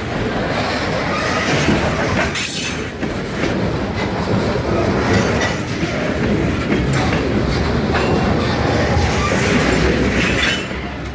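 Freight train rolling past close by: steady rumble with steel wheels clacking over the rail joints and a few sharp knocks.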